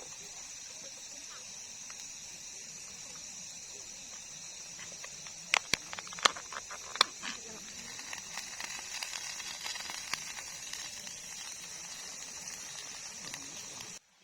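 A steady high-pitched hiss, with a quick run of sharp clicks and knocks about six seconds in and lighter ticking after; the hiss cuts off abruptly near the end.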